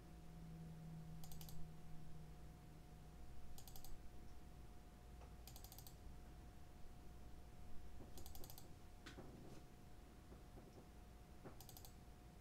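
Computer mouse clicking in five short clusters of quick clicks, about two to three seconds apart, as a joint arrow button is tapped to nudge a robot arm a fraction of a degree at a time, over a faint steady electrical hum.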